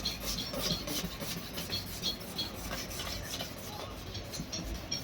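Hand rubbing on an old plastic headlight lens to remove its scratches and haze, a scraping rub repeated a few times a second.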